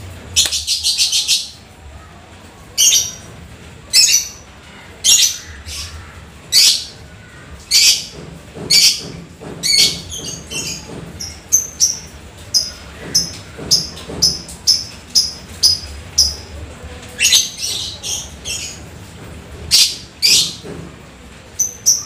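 Lovebird calling: a long shrill call about half a second in, then a string of shrill calls about one a second, turning into shorter, sharper chirps in quicker succession from about halfway.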